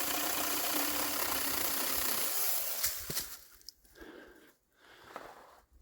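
Saker cordless electric mini chainsaw running with a steady motor whine and chain noise, cutting through a spruce limb; it stops about two and a half seconds in. After that, light scattered clicks and rustles.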